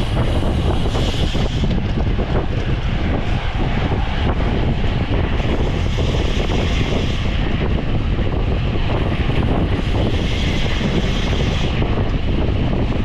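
Wind rushing over the microphone of a camera on a bicycle moving at race speed: a steady, loud rumble with a higher hiss that swells and fades three times.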